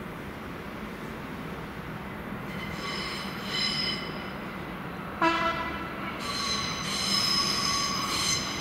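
ČD class 640 RegioPanter electric unit running in over curved station tracks, its wheels squealing high-pitched in two stretches. A short horn blast comes about five seconds in and is the loudest sound.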